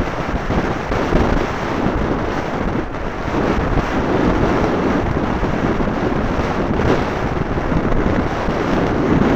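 Wind buffeting the microphone of a keychain spy camera carried on a moving racing bicycle: a loud, steady rushing noise.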